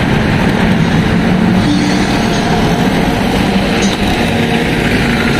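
Steady engine and road noise of a vehicle moving through traffic, heard from on board.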